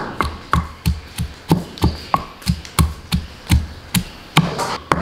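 Wooden pestle pounding garlic cloves in a mortar: a steady run of dull knocks, about three a second.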